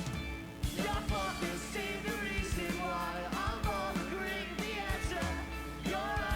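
Rock band music with singing and drums, the reacted-to song playing back.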